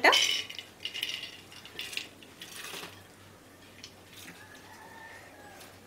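Soaked chana dal (split chickpeas) tipped from a metal bowl into an aluminium pressure cooker and scraped out by hand, with a loud rattling burst at the start and a few smaller scraping bursts over the next three seconds.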